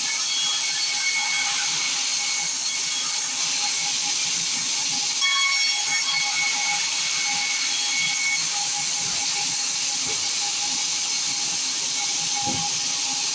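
Sawmill saw cutting through a large acacia log: a steady hissing rush with a faint high whine running through it.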